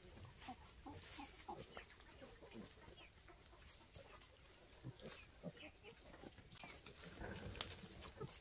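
Faint, scattered short calls of pigs and piglets mixed with hens clucking as they root and peck.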